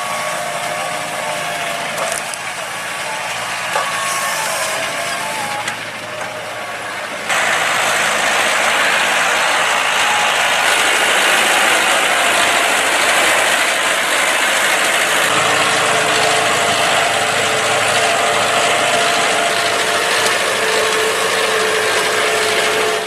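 John Deere 5100R tractor running steadily while ploughing, a constant engine and machinery noise with a few steady tones. It jumps suddenly louder about seven seconds in.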